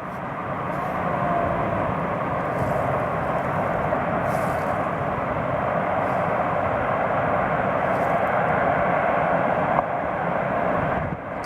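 Steady rushing noise of a helicopter in flight, with no clear beat of rotor blades, dropping a little shortly before the end.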